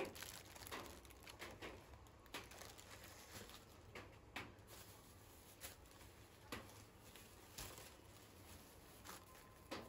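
Faint, intermittent rustling and crinkling of plastic bags being handled, in short scattered bursts about once a second.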